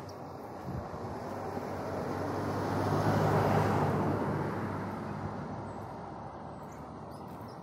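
A motor vehicle passing by: its engine and road noise swell to a peak about three and a half seconds in, then fade away.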